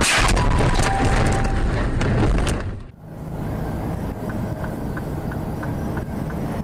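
A car crash heard from inside the vehicle: loud crunching and scraping with sharp cracking impacts, cut off abruptly about three seconds in. After that, steady engine and road noise inside a moving vehicle.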